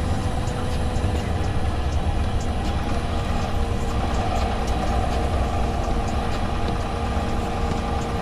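Cummins ISL 8.9 inline-six diesel of a Thomas Saf-T-Liner HDX school bus running, heard from inside the passenger cabin as a steady low rumble.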